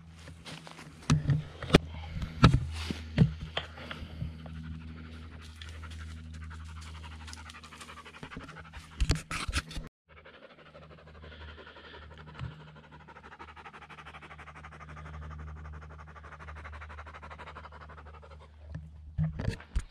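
Steady panting breaths close to the microphone, with footsteps crunching through dry leaf litter and snapping twigs in the first half; after a break about halfway through, the crunching stops and only the panting goes on.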